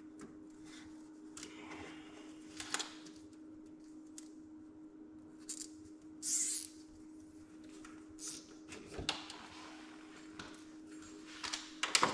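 Scattered light clicks, clinks and small knocks of hand tools and metal parts being handled during ATV wiring work, with a short scrape about six seconds in and a quick run of clicks near the end. A steady low hum lies under it all.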